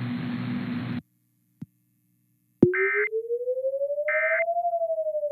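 Emergency Alert System end-of-message signal: two short bursts of warbling digital data tones about a second and a half apart, over a synthesized tone that slowly rises in pitch and then begins to fall. Before it, a humming, hissing broadcast background cuts off about a second in, followed by a gap of silence with a single click.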